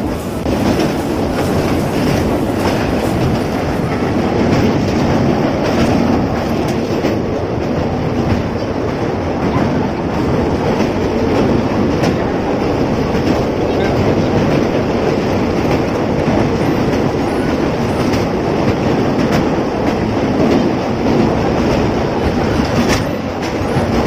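Express passenger train running over a steel truss railway bridge: a loud, steady rumble of coach wheels on the rails with clickety-clack and scattered sharp knocks.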